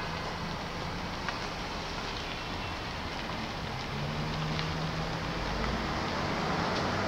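Steady street traffic noise, with a vehicle's low engine hum coming in about halfway through and growing louder.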